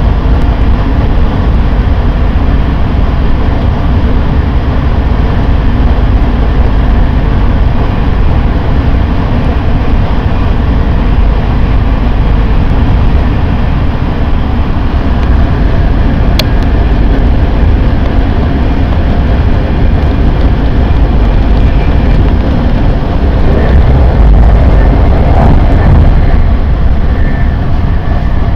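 Steady running rumble of a passenger train heard inside the carriage while moving, with a single short tick about halfway through and a slight swell in loudness near the end.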